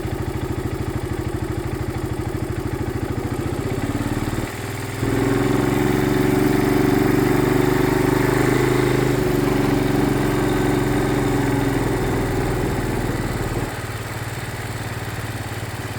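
A vehicle engine running at a low, steady pace. About five seconds in it grows louder and holds there, then drops back near the end.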